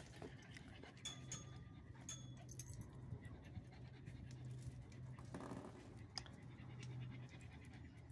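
A small dog panting, with a few light clicks.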